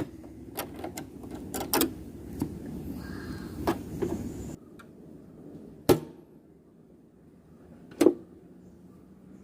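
Light clicks and knocks of small plastic and metal sewing-machine accessories being handled, with a low background rumble that drops away about halfway through. Two sharper single clicks follow later.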